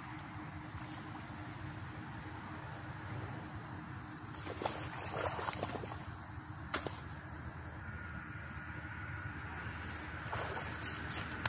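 Water splashing and sloshing in irregular bursts as a hooked catfish thrashes in the shallows while it is landed by hand, the loudest splashes about halfway through and again near the end.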